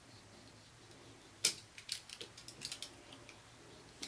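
Utility knife trimming excess heat-shrink tubing off the end cap of an LED neon flex strip: one sharp snip about a second and a half in, then a run of small clicks and scrapes, and another click at the very end.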